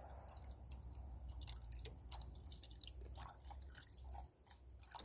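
Coolant being poured into a car radiator: faint scattered drips and small gurgles of liquid, over a low hum that stops about four seconds in.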